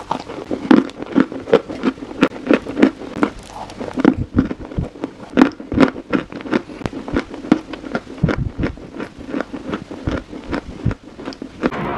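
Close-up eating sounds: a quick, irregular run of crisp crunches, several a second, from biting and chewing a dry, powdery white bar.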